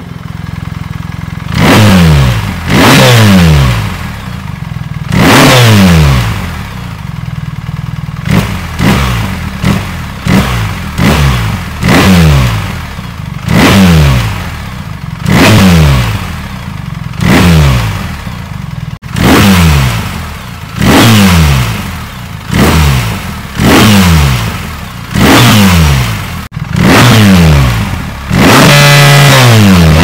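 BMW R 1300 GS boxer-twin engine through an Akrapovič titanium slip-on exhaust, revved again and again from idle: about twenty quick throttle blips that fall back to idle, the last held high for a couple of seconds near the end. The note is full, with no whistle.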